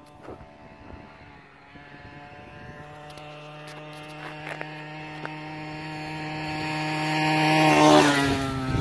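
49cc two-stroke pocket ATV engine held at a steady high pitch as it approaches, growing steadily louder. It passes very close near the end, where it is loudest and its pitch drops as it goes by.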